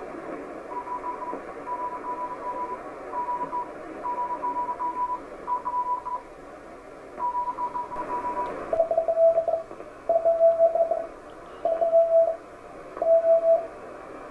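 Morse code (CW) heard through a ham radio receiver over band hiss: a keyed tone at about 1 kHz sends dots and dashes, then about eight seconds in a louder, lower-pitched CW signal takes over, sending slowly with long dashes.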